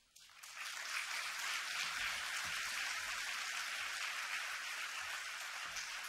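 Large audience applauding, a dense, steady clapping that comes in sharply just after the start.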